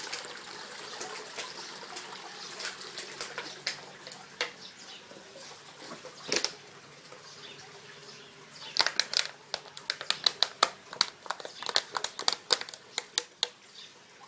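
Small trickle of water running, fading over the first half, then a quick, irregular run of sharp clicks and taps from about nine seconds in.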